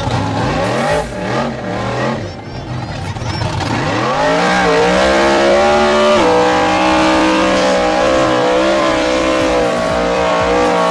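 Rock buggy engine revving in short bursts, then climbing to high revs about four seconds in and held there at full throttle with the wheels spinning.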